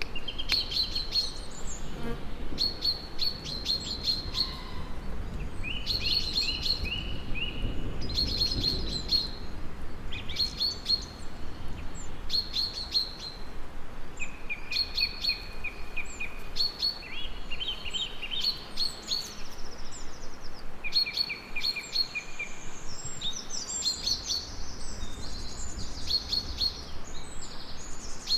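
Several songbirds singing, with repeated short bursts of rapid chirps every second or two and more varied, warbling phrases near the end, over a low background rumble.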